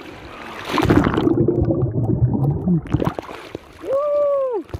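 A person diving into the sea: a splash about a second in, followed by about two seconds of loud, muffled churning water. Near the end comes a short held vocal call.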